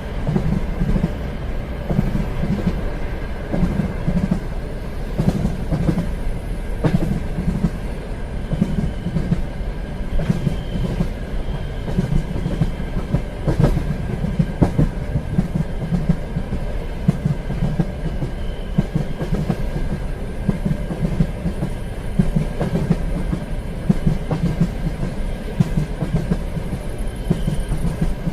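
Train running along the track: a steady low rumble with wheels clicking over the rail joints and a faint steady whine.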